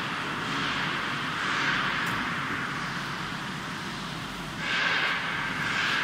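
Industrial microwave wood drying machine running: a steady whirring hiss over a faint low hum, swelling louder briefly about a second and a half in and again near the end.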